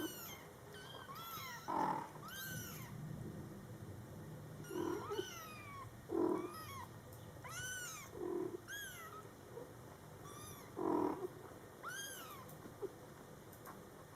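Scottish Fold kittens mewing over and over in thin, high calls that rise and fall, mixed with louder, lower and shorter calls from the mother cat, over a steady low purr.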